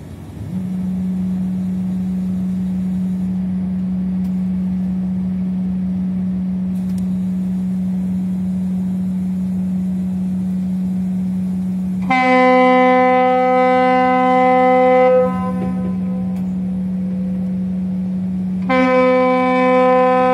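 Ship's horns sounding as a trawler leaves the quay in a departure salute: one deep horn blast held steady, joined twice by a second, higher horn with a brighter, richer tone, once for about three seconds and again near the end.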